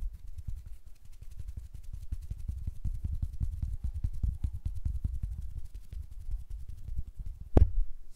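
Hand sounds close to a microphone: fingers fluttering and brushing in front of it, making a rapid stream of soft low thuds. About seven and a half seconds in, the palms come together in one louder, sharper clap.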